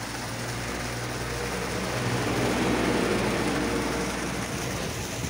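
Water gushing from an outlet into a concrete pool, a steady rushing with a low hum underneath. It grows louder toward the middle and eases off near the end.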